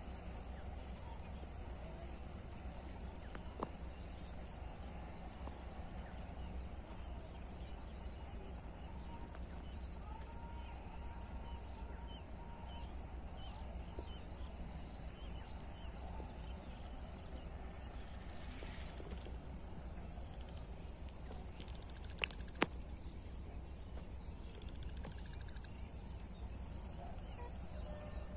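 Steady, high-pitched chorus of insects over a low rumble, with a few faint clicks.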